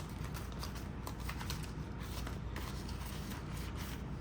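Paper banknotes being handled and tucked into a budget envelope: a run of soft rustles and light crinkly clicks.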